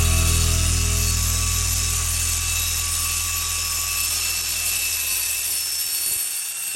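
Low, steady motor-like hum that fades away over several seconds, with faint music behind it.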